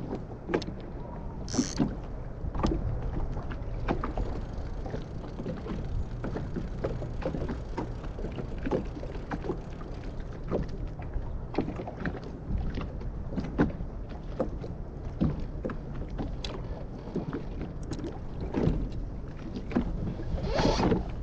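Small waves lapping and slapping against the hull of a small boat on choppy sea, in irregular splashes over a steady low wind rumble on the microphone. There is a louder flurry of splashes near the end.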